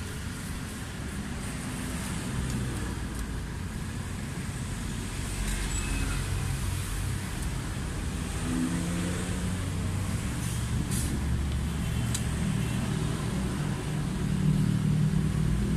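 Road traffic running past, a steady low rumble with a vehicle engine growing louder near the end. A couple of faint light clicks near the middle.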